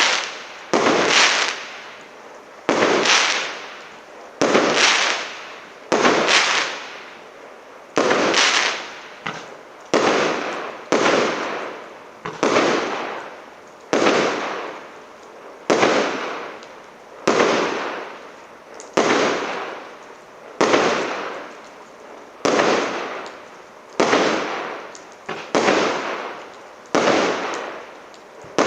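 Multi-shot firework battery (the СЛ326200 "Marathon" cake) firing shot after shot in a steady rhythm, about one every second and a half. Each shot is a sharp bang that trails off over about a second, with some shots coming in quick pairs.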